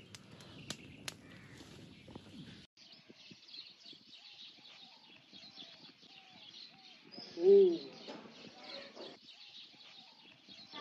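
A wood fire crackling with a few sharp snaps, then, after a sudden change, birds chirping. About seven and a half seconds in, a single short, loud call rises and falls in pitch.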